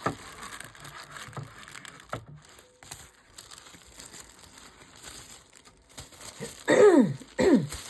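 Crinkling of packaging paper as a wrapped item is handled and unwrapped, with faint ticks. Near the end come two loud, short sounds that each slide steeply down in pitch.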